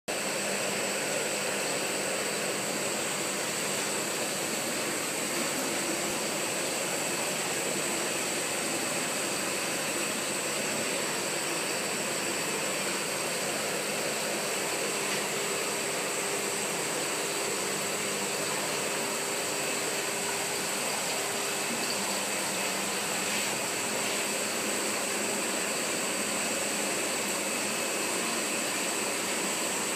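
Steady machine whir and hiss at an unchanging level, with several constant high whines running through it.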